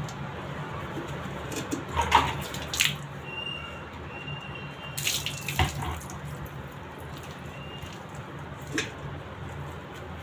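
Water splashing as a Labrador puppy is washed by hand, with sharper splashes about two, three, five and nine seconds in, over a steady low hum.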